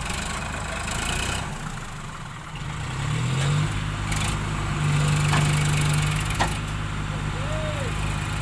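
Sonalika tractor's diesel engine running, revving up about three seconds in and held at higher revs under load as it strains to haul a loaded tipping trolley stuck in soft earth, then easing off slightly near the end.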